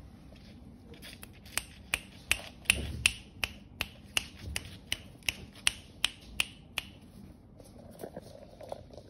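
A person snapping their fingers over and over, about three snaps a second for some six seconds, then stopping.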